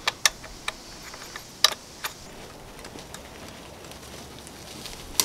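A few sharp clicks and light knocks from parts being fitted back onto a generator engine's air-cleaner housing, the loudest about one and a half seconds in.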